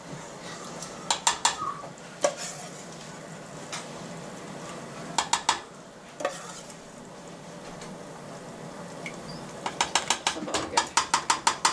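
A metal spoon clinks against the pots as cooked beans are spooned into a pot of chili, and a ladle then taps the pot in a quick run near the end as the chili is stirred. Underneath is a steady low sizzle from the simmering pot.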